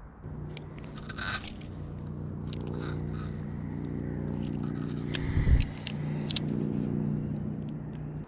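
Ultralight spinning reel being cranked at a steady pace, its gears giving a steady low whir while a jig is retrieved, with a few sharp clicks and one low thump about five and a half seconds in.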